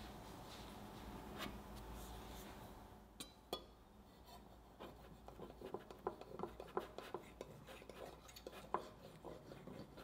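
Two light clicks a little after three seconds in, then a serrated bread knife sawing back and forth through a baked sponge cake, giving a quick run of soft rasping scratches.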